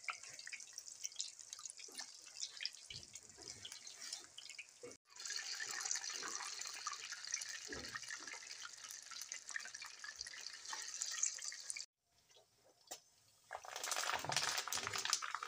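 Batter-coated baby corn and taro pieces sizzling and crackling as they deep-fry in hot oil. The sizzle drops to near silence for a moment about twelve seconds in, then starts again.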